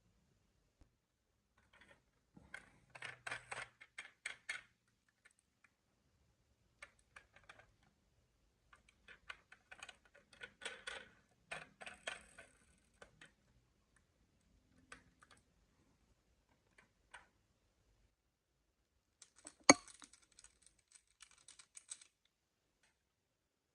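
Marbles rolling and clattering through a Cuboro wooden-block marble run: bursts of rapid clicking with scattered single clicks, and one sharp knock near the end followed by a short run of clicks.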